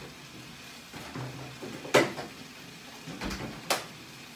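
Kitchen handling clatter: three sharp knocks, the loudest about two seconds in and two lighter ones a little over a second later, as things like a refrigerator door and kitchen items are moved.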